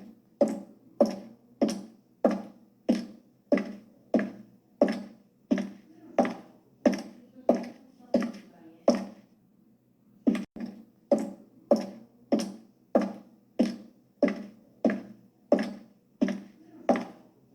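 High-heeled shoes walking: sharp heel clicks at a steady pace, a little under two steps a second. They stop for about a second around nine seconds in, then pick up again with a quick double click.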